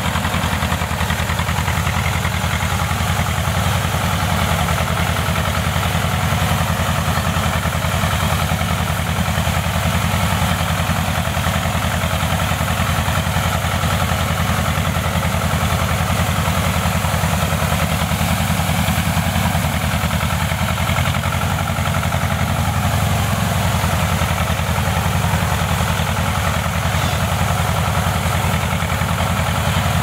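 Tractor engine running steadily with a fast, even beat as it drags a bundle of birch poles.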